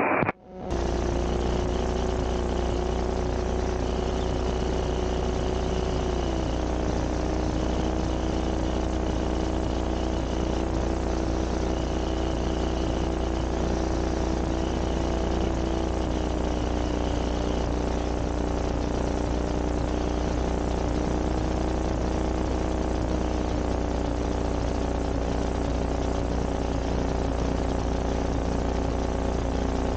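Light sport aircraft's propeller engine heard from inside the cabin, running steadily with its pitch easing down in a few small steps as power is reduced. A faint high tone comes and goes several times in the first half.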